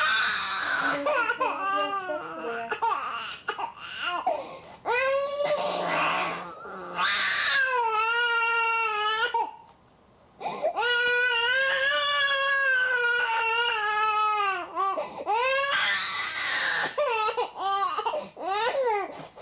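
Infant crying hard: short sobbing cries, then long high wails held for a second or more, with a brief pause for breath just before ten seconds in.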